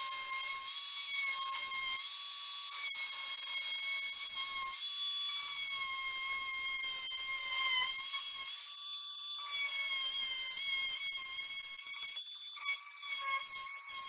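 Dremel Multi-Max oscillating multi-tool running with its blade cutting into fiberglass drywall: a steady high-pitched whine with a stack of overtones that wavers as the blade bites, dipping briefly about nine seconds in and again near the end.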